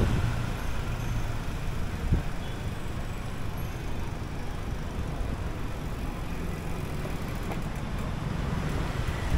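Street traffic noise: a steady rumble of passing road vehicles, with one short knock about two seconds in.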